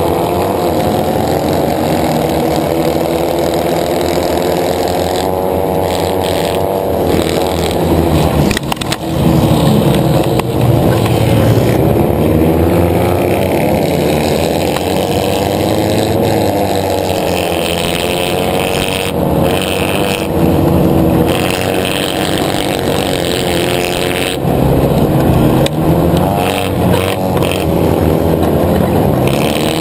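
Autocross buggy engine heard onboard at race pace, revving up and down repeatedly through the corners and shifts, with other buggies' engines running close by.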